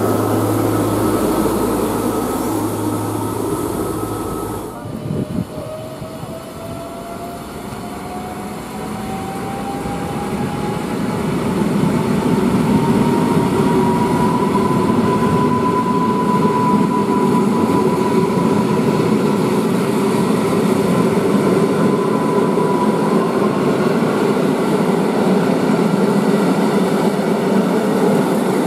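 A diesel railbus runs with a steady low hum for the first few seconds. Then an EN57-type electric multiple unit passes close by over wheel and rail noise, its whine rising in pitch for about ten seconds as it gathers speed and then holding steady.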